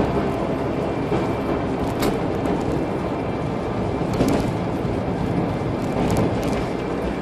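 Carburetted car cruising steadily in top gear, heard from inside the cabin: a steady rumble of engine and road noise, with a few brief knocks about two seconds apart.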